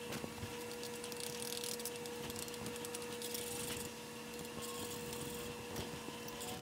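A metal fork stirring butter into hot water in a small stainless steel bowl, giving faint scrapes and light ticks over a steady hum and hiss.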